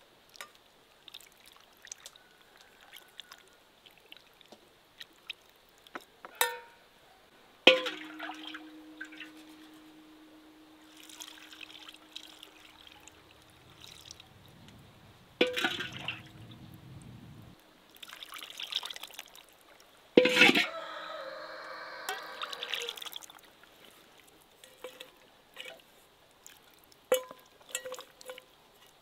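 Enamel bowls and pots knocking and clinking as cooked lamb in its fat is scooped out with an enamel bowl and tipped, with wet sloshing between. The loudest knocks leave the enamel ringing with a steady tone for a few seconds.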